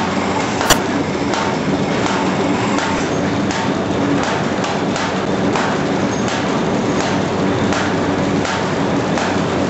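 Paper bag making machine running: a steady mechanical clatter with a regular knock about twice a second, and a single sharp click less than a second in.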